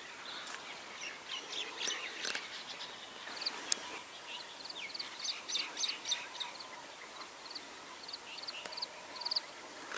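Small birds chirping: many short, quick calls repeating, with a steady high-pitched whine joining about three seconds in.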